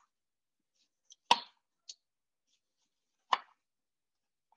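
Chef's knife slicing through a lemon and knocking on a wooden cutting board, twice, about two seconds apart, with faint ticks between.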